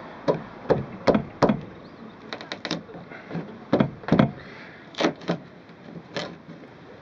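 Irregular sharp knocks and clicks of a blade tool being worked between a camper van's window frame and its aluminium body, prying the frame away, with a quick run of taps about two and a half seconds in.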